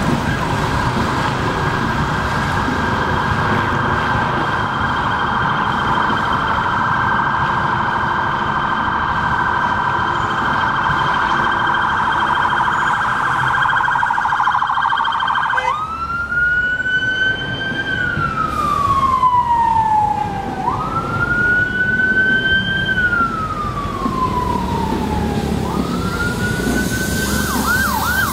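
Ford Transit police van's electronic siren on a rapid yelp for about the first fifteen seconds. It then switches to a wail: two long cycles, each rising quickly and falling slowly. Near the end it goes back into a yelp of about four sweeps a second, with traffic rumbling underneath.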